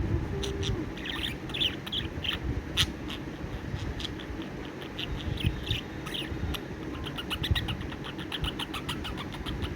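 Budgerigar chirping: short high chirps, scattered at first, then a fast run of many quick chirps in the last few seconds, over a low background rumble.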